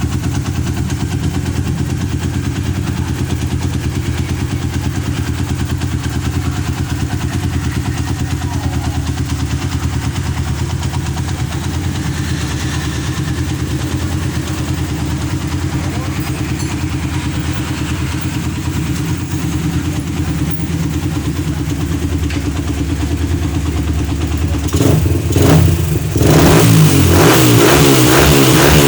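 Suzuki Satria FU 150 single-cylinder four-stroke engine, ported and fitted with a new cylinder and head, idling steadily. Near the end it is revved in repeated blips, rising and falling and louder.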